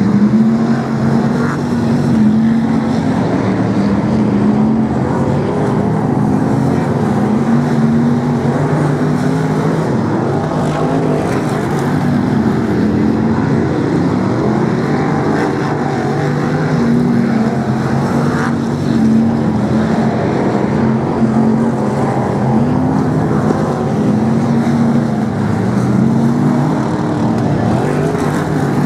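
Several BriSCA F1 stock cars' V8 engines running loud and continuous around the oval. The pitch keeps rising and falling as the cars go round.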